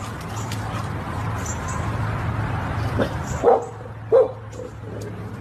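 A dog giving two short barks about halfway through, over a steady low hum.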